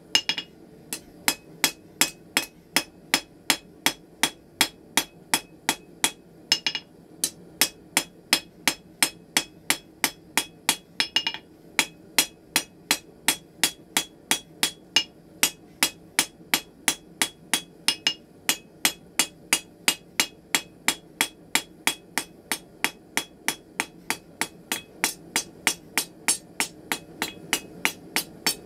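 Blacksmith's hammer striking red-hot steel on an anvil in a steady rhythm of about three blows a second, each with a bright metallic ring, as the end of a hand-forged flint striker is rounded over. A steady low hum runs underneath.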